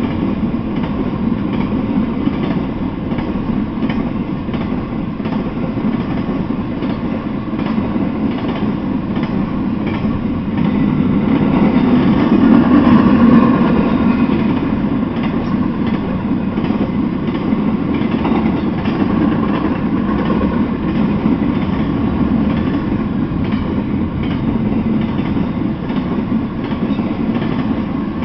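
Intermodal freight train rolling past, its container- and trailer-laden flatcars making a steady rumble with wheels clacking over the rail joints. It grows louder for a few seconds about halfway through.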